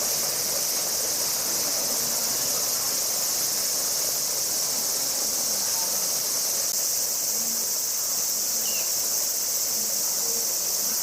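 Chorus of cicadas: a steady, unbroken high-pitched buzzing drone.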